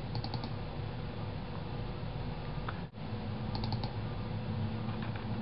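Computer mouse double-clicking, a quick cluster of clicks just after the start and another about three and a half seconds in, over a steady low hum.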